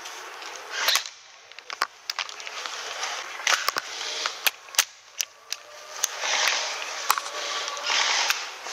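Airsoft replicas firing: about a dozen sharp single shots, spaced irregularly, with short stretches of noise between them.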